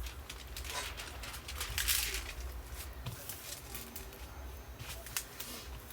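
Soft rustling and crinkling from a diamond-painting canvas and its plastic cover film being handled, with one louder crinkle about two seconds in and a few light clicks.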